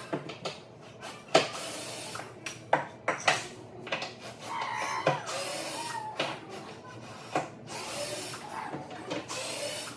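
Sharp wooden knocks and clacks with stretches of scraping and rubbing, from work on a wooden table's legs and frame beneath the tabletop.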